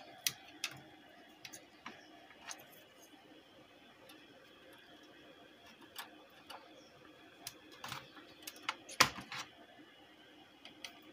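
Sporadic light clicks and taps of hands and side cutters working on a car stereo's harness wires, readying a speaker connection, with the loudest cluster about nine seconds in. A faint steady hum sits underneath.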